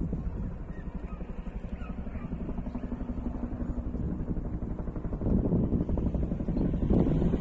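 Distant military helicopter in flight: a low rumble with the fast, even thudding of its rotor, growing louder about five seconds in, with wind on the microphone.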